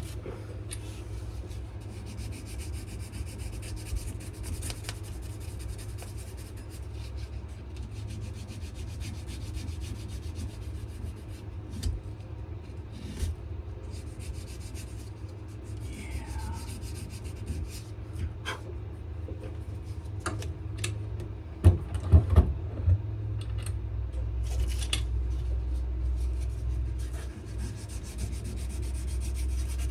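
Sandpaper rubbing back and forth on a wenge and maple knife handle in scratchy hand-sanding strokes, over a steady low hum. Three sharp knocks come about two-thirds of the way through.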